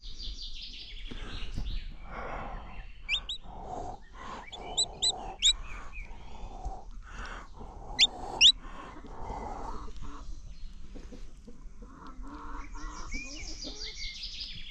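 Domestic chicks peeping: sharp, high, rising peeps, the loudest in short clusters about three, five and eight seconds in, with softer, lower calls and quick runs of small chirps between them.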